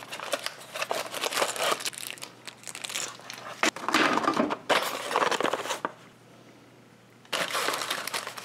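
Plastic packaging crinkling and tearing as a small bag of gate-mounting hardware is handled and opened, with one sharp click midway. The crackling stops for about a second and a half, then starts again near the end.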